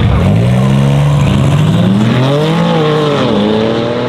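Two cars launching side by side in a drag race: a tuned BMW M3 G80 with its twin-turbo straight-six and Akrapovic exhaust, and a Mercedes-AMG GL-Class SUV, both accelerating hard from the line. The engine note climbs steadily, with a gear change about three seconds in.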